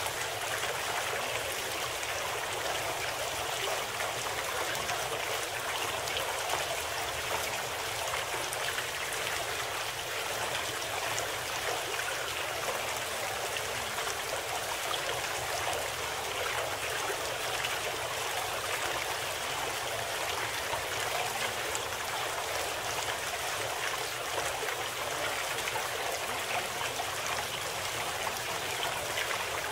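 Steady sound of running water, like a flowing stream, even and unchanging throughout.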